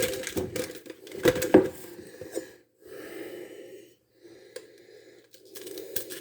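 Light clicks and knocks, then stretches of soft rustling: Brussels sprouts being handled, their outer leaves peeled off.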